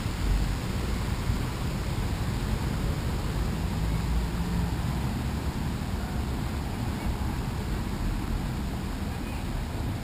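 Steady low outdoor rumble with no distinct events, the kind made by street traffic and wind.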